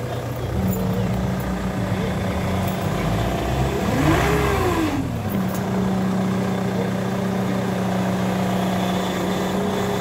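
Ford Mondeo engine running while the front wheels are steered, with the failed power steering pump in the sound: a steady engine tone, and one tone that rises and falls once about four seconds in.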